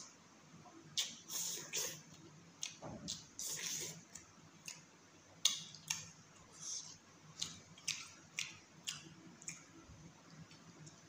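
Eating sounds from rice and chicken curry eaten by hand: a string of short crackles and wet clicks as crushed papad and rice are mixed with the fingers and chewed.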